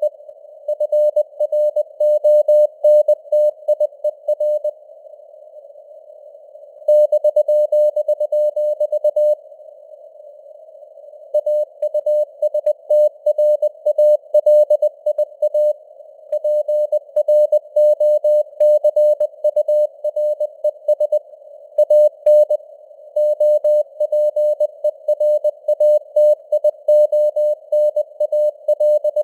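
Computer-generated Morse code (CW) sent at 20 words per minute: a single-pitch beep keyed rapidly on and off in dots and dashes over faint simulated radio hiss. Twice in the first third the keying pauses for about two seconds while the hiss continues.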